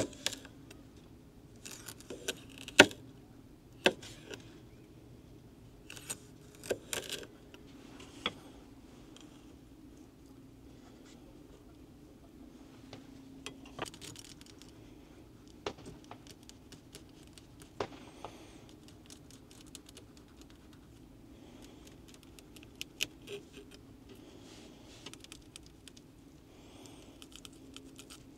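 Kitchen knife slicing small gizzard shad on a cutting board, the blade knocking and clicking on the board in scattered irregular strokes, the loudest about three seconds in. A faint steady low hum runs underneath.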